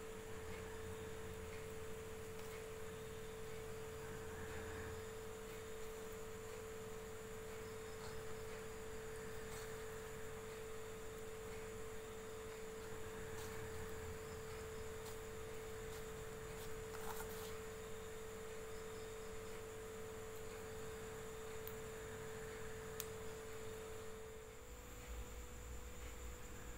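Faint steady hum at a single pitch, which drops away about 24 seconds in.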